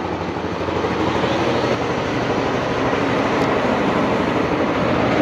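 Yamaha Aerox scooter's single-cylinder engine, built up to 194cc with a JVT big-bore kit, idling steadily through its stock exhaust. It sounds very quiet for a bored-up engine.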